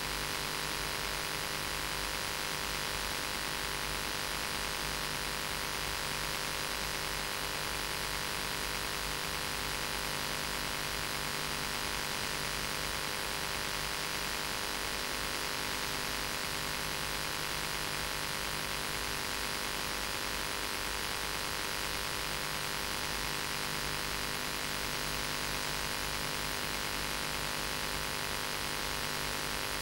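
Steady hiss with a constant electrical mains hum, unchanging throughout; no speech or other sound comes through.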